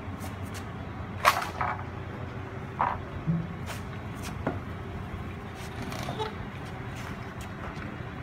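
A few scattered knocks and clunks from an aircraft wing being handled and shifted on padded sawhorses, the loudest a little over a second in and another near three seconds, over a steady low background hum.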